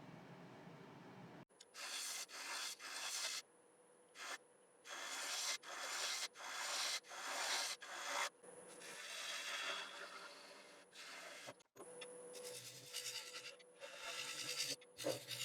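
Repeated strokes of hand-held abrasive or cloth rubbing against a cypress bowl spinning on a wood lathe, over a faint steady lathe hum. The strokes come in short spells split by sudden cuts.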